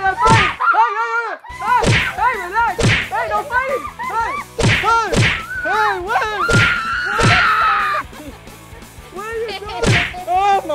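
Party dance music playing loud: a sung vocal melody that bends in pitch, over sharp percussive hits, with one long held note about two-thirds of the way through.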